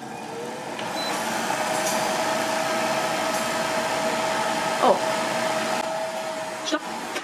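De'Longhi MultiFry multicooker running: its hot-air fan blowing with a steady hum while the vegetables fry in oil in the heated pan. A short falling sound about five seconds in.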